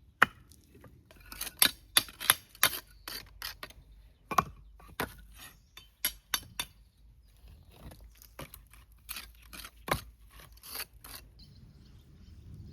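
Irregular run of sharp clinks and knocks, a tool or brick striking hard masonry to chip thick cement off old salvaged bricks. The strikes come about two or three a second with short pauses and stop about eleven seconds in.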